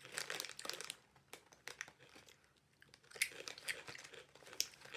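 Crunchy ring-shaped chips being chewed with the mouth close to the microphone: a dense crackling crunch in two spells, at the start and again about three seconds in.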